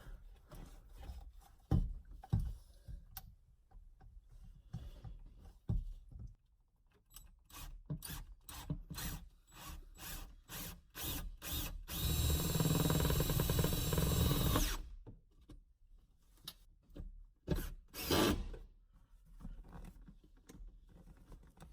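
Power drill running steadily for about three seconds midway through, amid scattered clicks and knocks of parts being handled and fitted, with a sharp knock a few seconds after the drill stops.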